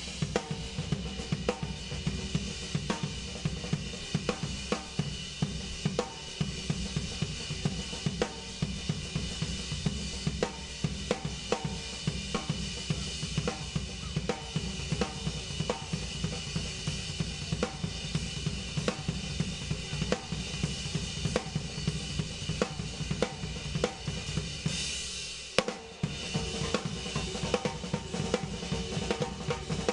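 Live drum kit played hard and fast, a drum solo: snare, bass drum, toms and cymbals in a dense, driving pattern. About 25 seconds in a cymbal crash is followed by a short break before the drumming picks up again.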